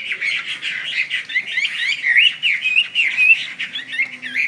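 Chinese hwamei singing a rapid, continuous song of varied whistled notes that sweep up and down in pitch.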